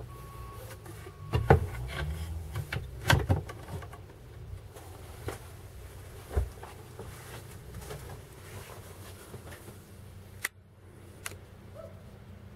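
A few sharp knocks and thumps, loudest about a second and a half and three seconds in, with fainter single clicks later, over a low steady rumble.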